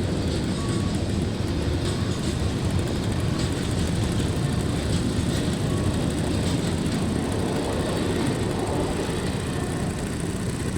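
Freight train rolling past, a steady, continuous rumble of wagon wheels on the rails.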